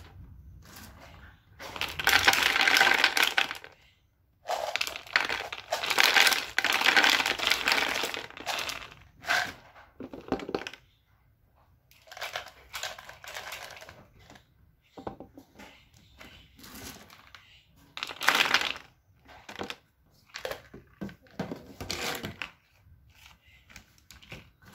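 Soaked mung beans poured into a thin plastic bottle, the beans pouring against the plastic in two long pours in the first third. Scattered handling sounds follow, with a shorter pour about 18 seconds in.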